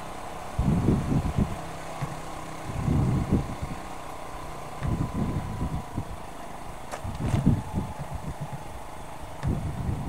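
Motorcycle engine running as it is ridden slowly, with irregular low rumbling surges every two seconds or so.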